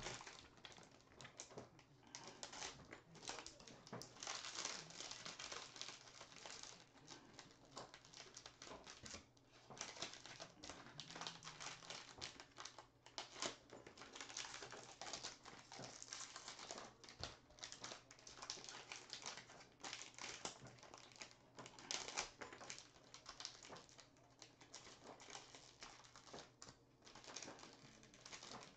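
Foil trading-card pack wrappers and cellophane crinkling as packs are handled and opened, with many quick, light clicks and taps of packs and cards.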